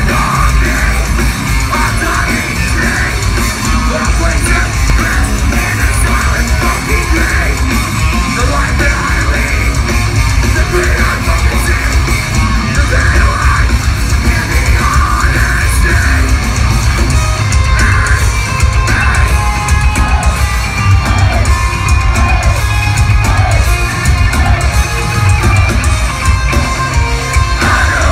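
Metalcore band playing live at full volume: heavy distorted guitars, pounding drums and screamed vocals, heard through a phone's microphone in the crowd.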